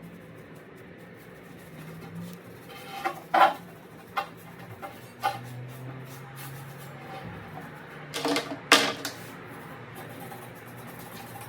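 Several sharp knocks and clatters, the loudest about three and a half and eight and a half seconds in, over a faint low hum.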